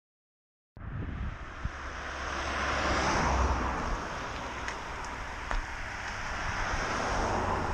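Silent for just under a second, then wind rumbling on an action camera's microphone over the steady noise of mountain-bike tyres rolling on a gravel track, with a few light ticks.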